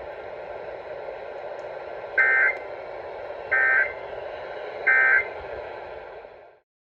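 Emergency Alert System end-of-message data tones: three short, buzzy two-tone bursts about 1.3 seconds apart over steady radio static hiss, signalling that the warning broadcast is over. The hiss cuts off near the end.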